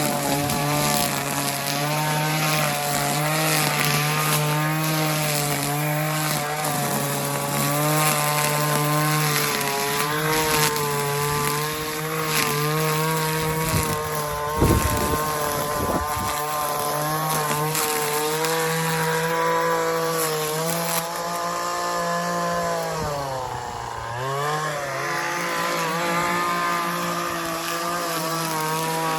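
Small motor vehicle engine running at a steady speed, with the revs dropping and then picking up again about three quarters of the way through. A couple of knocks about halfway.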